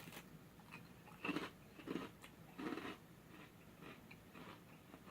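Faint chewing and crunching of a seaweed-flavoured cracker, with three soft crunches in the first three seconds.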